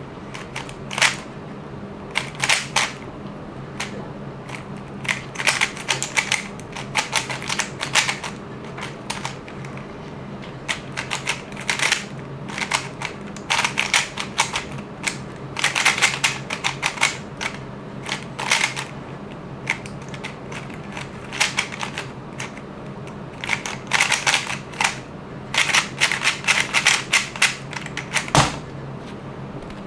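A Moyu WeiLong WRM magnetic 3x3 speed cube being turned in quick runs of clacking layer turns, with short pauses between the runs.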